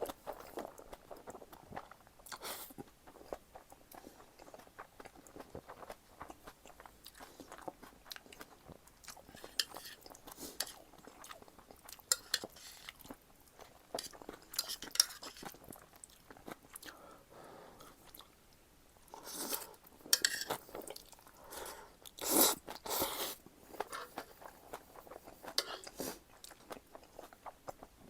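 Close-up eating sounds of a person chewing Jjapaghetti noodles and green onion kimchi: irregular wet chewing, smacking and small crunches, with a louder run of bites and mouth sounds about twenty seconds in.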